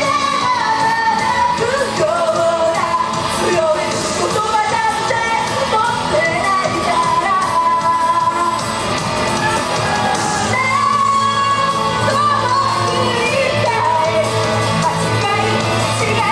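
Live J-pop idol song: a woman singing into a handheld microphone over loud amplified backing music.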